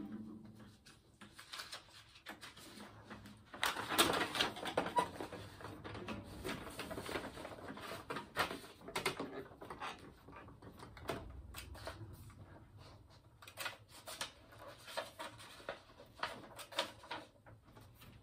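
Handling noise: scattered light clicks, knocks and rustles as a harmonica neck rack is adjusted and sheets of paper are shuffled, busiest about four seconds in.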